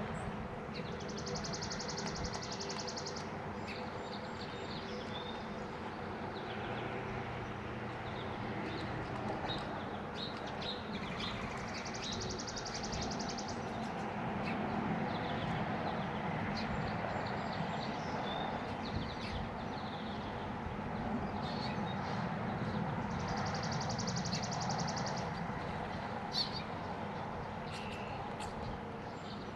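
Steady outdoor background noise with scattered faint ticks, and a high, finely pulsed trill of about two seconds that comes three times, roughly ten seconds apart.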